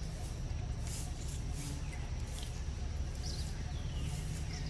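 Outdoor background with a steady low rumble, over which a few short, high-pitched animal chirps and falling squeaks sound now and then.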